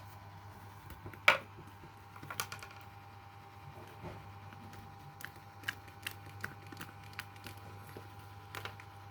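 Slime being kneaded and pressed by hand, giving scattered small clicks and pops, the loudest about a second in, over a steady low hum.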